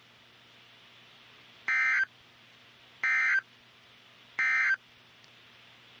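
Emergency Alert System end-of-message tones: three short, high-pitched bursts of digital data (the SAME 'NNNN' code), about a second and a half apart, with faint hiss between them. They signal that the alert broadcast is over.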